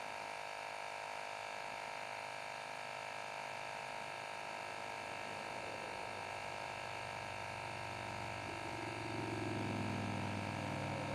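Microstart 12 V portable tire inflator's small electric compressor running steadily with an even buzzing hum while it inflates a motorcycle tire.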